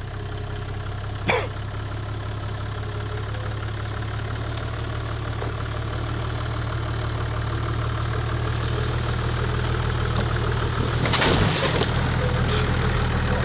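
Toyota Land Cruiser 80's engine running at low revs as the truck crawls slowly down into a deep rut, its sound growing gradually louder. About eleven seconds in there is a brief rush of noise.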